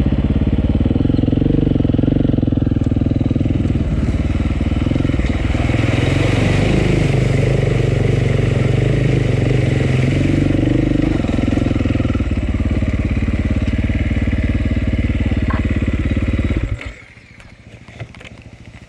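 Motorcycle engine running loudly, its pitch shifting midway as the revs change, then stopping abruptly about seventeen seconds in, leaving quieter background noise with a few clicks.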